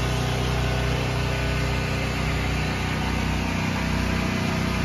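Portable generator engine running at a steady speed, giving an even, unbroken hum.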